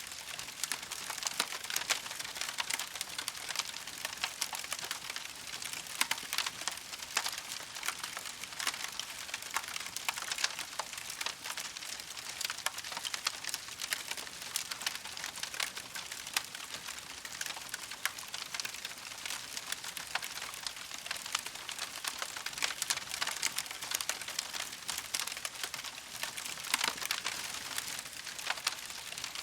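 Campfire crackling steadily: a dense, unbroken run of small pops and snaps over a soft hiss.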